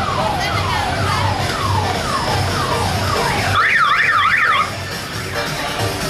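Electronic telolet horn on an odong-odong parade bus sounding a siren effect: six or so falling whoops about twice a second, then a fast warbling trill for about a second that cuts off abruptly.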